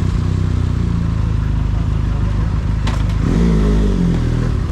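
Motorcycle engine running steadily, its pitch shifting briefly about three and a half seconds in, with a single click just before.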